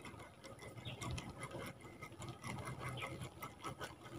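Spinning reel being cranked to wind in a cast lure: a fast, faint run of clicks and whirring from its gears.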